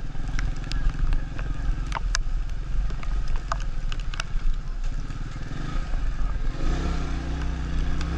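Small motorcycle engine running at low speed over a rough, muddy road, with scattered sharp clicks. The engine note grows stronger about six and a half seconds in.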